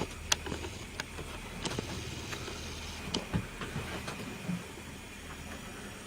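Model train running on a layout: a steady low motor hum with irregular sharp clicks of wheels passing over rail joints and points.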